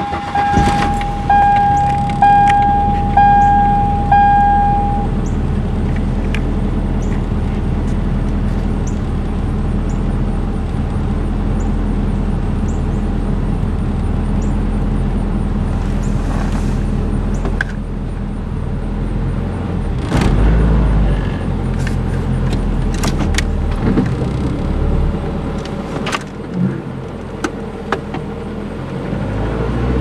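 Car engine idling unevenly, its speed rising and falling, which the owner puts down to a vacuum leak. A dashboard warning chime sounds about once a second for the first five seconds, and a few short knocks and rattles come later.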